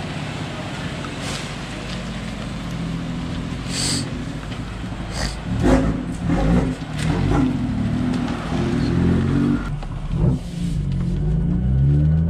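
BMW M2's N55 turbocharged straight-six, running through a freshly fitted catless downpipe, idling and blipping, then pulling away with the exhaust note climbing in pitch near the end. Two sharp clicks sound about four and five seconds in.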